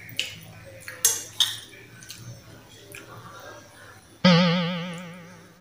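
A metal spoon clinks a few times against a glass bowl, then about four seconds in a single loud plucked-string note with a wobbling pitch, a sound effect laid over the picture, sounds suddenly and fades away.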